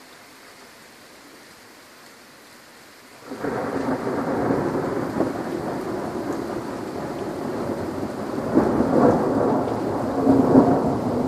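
Steady rain, then about three seconds in a sudden clap of thunder that goes on rumbling loudly, swelling twice near the end.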